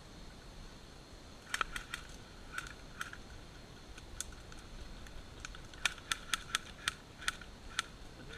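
Airsoft guns firing irregular single shots: sharp snapping clicks, a few at a time, with a quicker run of about eight near the end.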